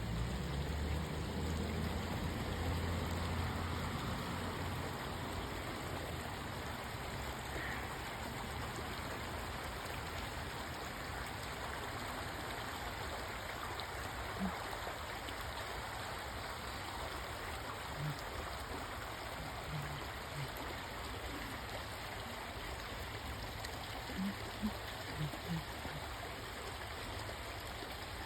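Steady rushing noise like a forest stream, with a low hum in the first few seconds. A handful of very short, low sounds come in the second half.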